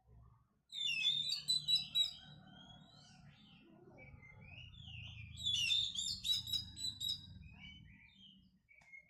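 Oriental magpie-robin (kacer) singing: two loud bursts of rapid, varied whistled phrases, about a second in and again about halfway through, with softer twittering between.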